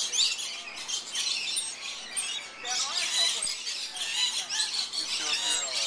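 Lorikeets squawking and chattering, with many high-pitched calls overlapping without a pause.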